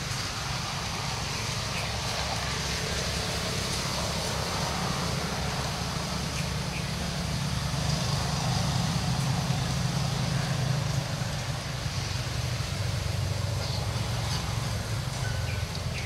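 Steady low rumble with a hiss over it, swelling a little about halfway through.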